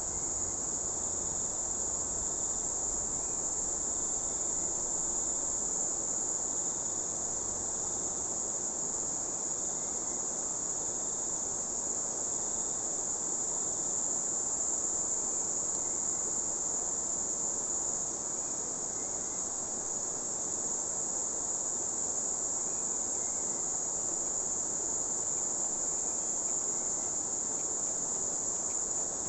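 Steady, high-pitched, unbroken drone of insects in the riverside vegetation, over the even rush of a fast-flowing river.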